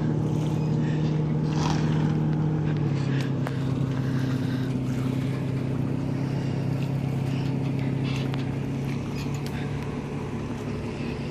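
Dodge Durango R/T's 5.7-litre Hemi V8, fitted with a Borla ATAK axle-back exhaust, running at low speed while backing a boat trailer down a launch ramp. It is a steady drone that drops in pitch about three seconds in and again near the end.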